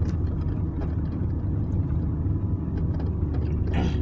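Car driving, heard from inside the cabin: a steady low rumble of engine and tyre noise, with a brief louder sound near the end.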